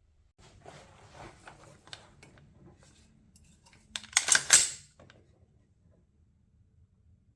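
Small irregular clicks and rattles of an AR-15-style rifle being handled, then a cluster of several sharp, loud metallic clacks about four seconds in.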